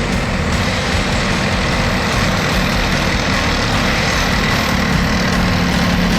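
Tank engine running steadily and loud, a heavy low hum under a dense rushing noise.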